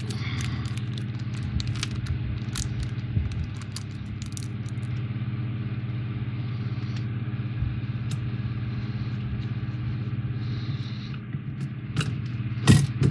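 Scattered small clicks and taps as small screws and plastic model parts are handled and fitted, with a few louder clicks near the end, over a steady low electrical-sounding hum.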